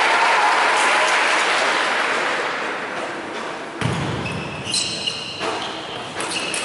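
Hall crowd noise fading, then a table tennis rally: the celluloid-type ball clicking sharply off the bats and table, roughly one hit a second.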